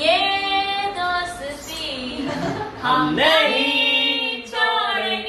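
A woman's voice singing a slow melody with long held, wavering notes.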